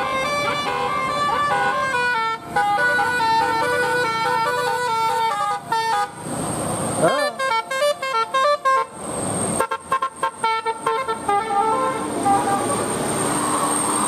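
Bus telolet horn, a multi-tone musical air horn, playing a quick melody of stepped notes that breaks off about six seconds in, then a second run of notes after a short rising glide. Near the end the horn stops and a steady rushing noise remains.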